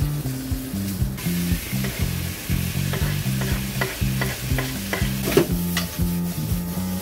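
Bacon sizzling as it fries in a pan, with metal tongs clicking and scraping against the pan as the pieces are stirred. The sizzle grows louder about a second in.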